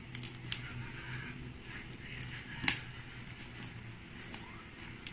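Small clicks and taps of tools and fingers working on a tablet's internals while its ribbon cable is freed, one sharper click near the middle, over a steady low hum.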